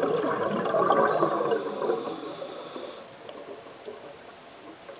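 A scuba diver's exhaled bubbles gurgling up past the camera underwater, dying away about three seconds in. A thin high hiss with steady whistling tones sounds alongside from about one to three seconds in.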